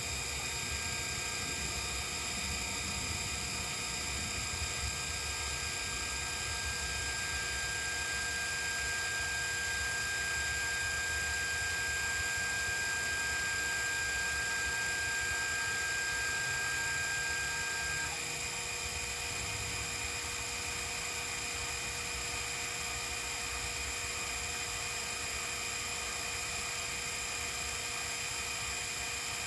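Sherline CNC mill running under its controller: a steady motor whir with several steady tones and a hum underneath. One high whine cuts off about two-thirds of the way through.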